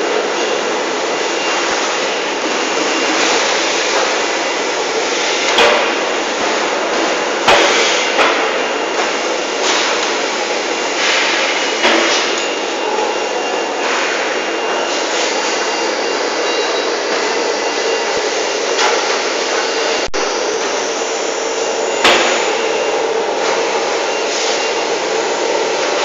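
Steady machinery noise of a solar water heater tank production line, with a few sharp knocks and clanks now and then, the loudest about seven and a half seconds in and again about twenty-two seconds in.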